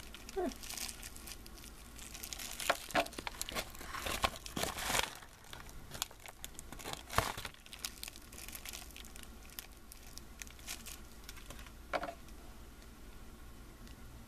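Packaging crinkling and rustling as it is handled and emptied, with scattered sharp crackles, busiest in the first five seconds and thinning out later.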